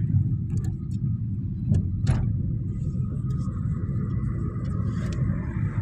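Steady low rumble of a car driving along a street, heard from inside the cabin.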